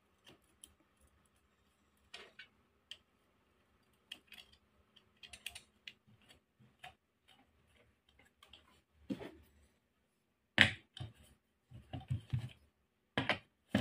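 Small metal clicks and taps of a bolt and steel bracket plate being fitted to an angle grinder's body, then a cluster of louder short knocks and scrapes near the end as the bolt is tightened with a socket wrench.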